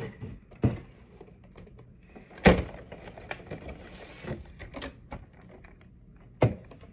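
Clear plastic blister tray of toy figures being handled, crackling and knocking. It gives a few sharp cracks, the loudest about two and a half seconds in, others near the start and near the end, with lighter crinkling between.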